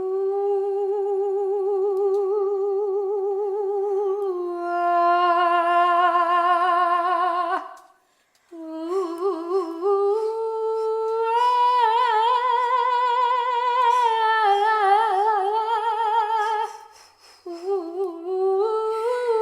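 Wordless intuitive chant: a single voice humming long held notes with vibrato, moving slowly between a few pitches. The voice breaks off for a short breath about eight seconds in.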